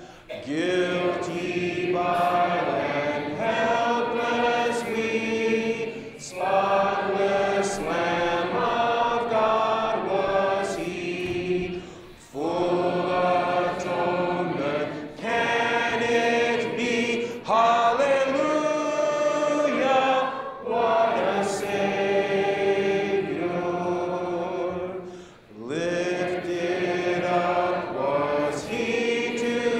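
A congregation of mixed voices singing a hymn together, unaccompanied, in phrases with short pauses for breath between lines.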